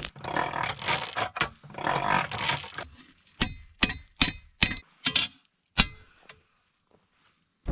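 Two rasping scrapes of about a second each, then a run of about seven sharp metallic clinks at roughly two a second, from metal striking metal while the steel is worked.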